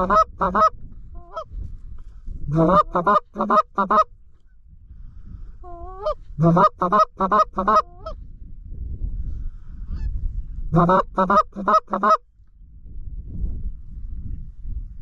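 Canada goose call blown by a hunter in quick runs of four or five loud honks, four runs in all, with a few short sliding moan notes between them, over a low wind rumble.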